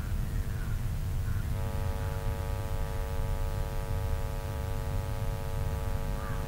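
Open channel of a launch-range communication loop between callouts: a steady low rumble of line noise, with an electrical hum of several steady tones that comes in about a second and a half in and cuts off near the end.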